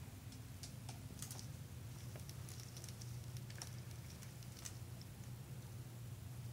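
Faint, irregular light clicks and taps of a screwdriver and fingers on the plastic and metal parts of a laptop screen assembly, over a steady low hum.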